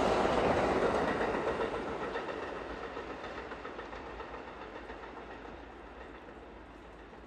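R32 subway train rolling away on the rails, its steel wheel and car rumble loud at first and fading steadily as it recedes over several seconds.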